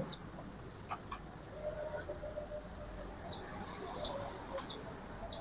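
Light clicks of hands handling the parts and cable connectors of an opened dot-matrix printer, the sharpest about a second in and near the end. Several short, high bird chirps are heard in the background.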